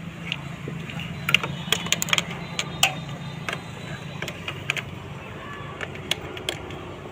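Scattered sharp metallic clicks and clinks as the timing chain and cam sprocket are handled and fitted on a TVS XL 100 engine, over a steady low hum.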